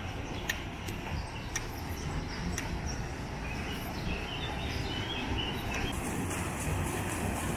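Birds chirping over a steady low rumble. About six seconds in, the rushing splash of water pouring off a mill water wheel comes in.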